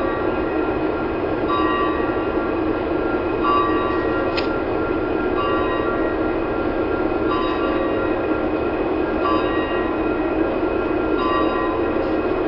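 Union Pacific diesel freight locomotive approaching with a steady engine rumble, and a bell ringing about every two seconds.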